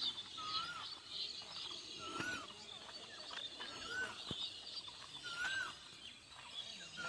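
Birds singing: one bird repeats a short whistled call that rises then falls, about every one and a half seconds, over a continuous chorus of higher chirping from other birds.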